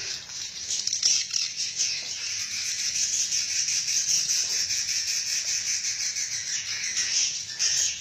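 Many edible-nest swiftlets twittering together in a dense, continuous high-pitched chatter.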